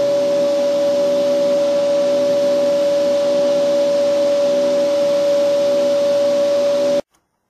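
Metal lathe running with a welded steel shaft spinning in its chuck: a steady, high machine whine that stops abruptly near the end.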